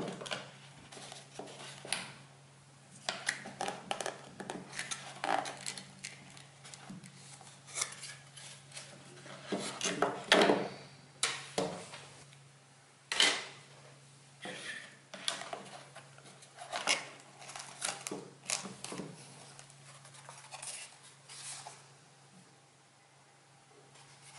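Handling of a cardboard VR viewer and a smartphone: irregular taps, knocks and scrapes as the phone is slid into the cardboard and the flaps are folded and moved on a table, over a steady low hum.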